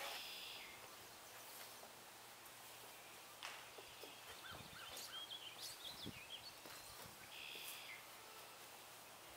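Near silence, with a few faint bird chirps around the middle.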